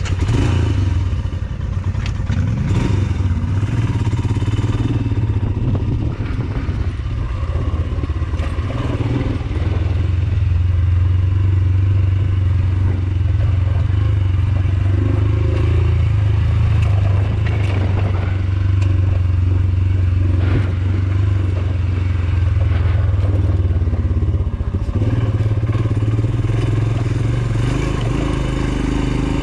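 Royal Enfield Himalayan's single-cylinder engine running steadily while riding a rough dirt track, its note rising and falling a little. Scattered clatter and rattles come from the bike going over bumps.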